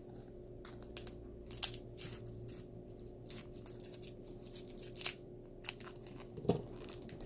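Plastic toy packaging crinkling and tearing as it is opened, in scattered small rustles and clicks over a faint steady hum.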